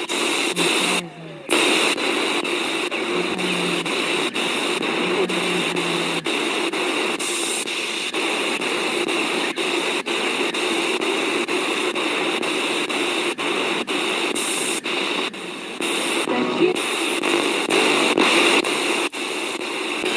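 Oil diffuser's built-in speaker playing its bird-sounds track, heard as a harsh, noisy wash full of small clicks, with a brief drop about a second in.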